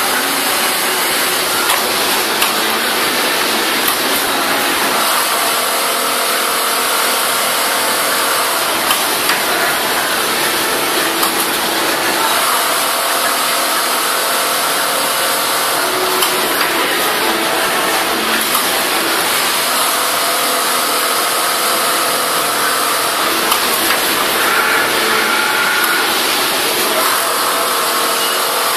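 Steady din of a garment factory floor where many industrial sewing machines are running. Pitched whirs come and go every few seconds, with a few light clicks.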